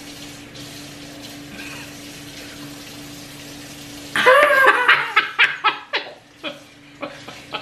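A woman laughing hard, starting suddenly about four seconds in, in short loud bursts over a steady background hiss and hum.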